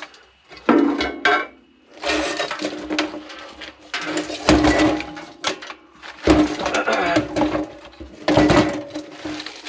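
Scrap metal and junk being rummaged through and handled: irregular clanking and rattling in repeated bursts, each a second or so long.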